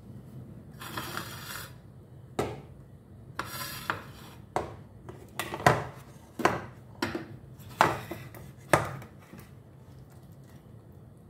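Metal ladle scraping and clinking against a stainless steel pan while stirring chicken in thick sauce: two scraping strokes, then about ten sharp knocks of metal on the pan.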